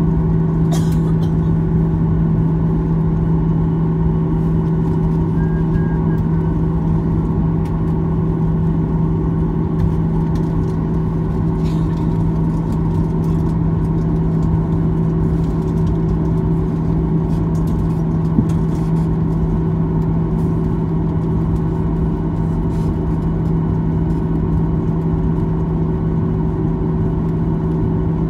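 Boeing 737-900 cabin noise while taxiing: the engines run at low power with a steady drone and a strong constant low hum. A few faint clicks can be heard.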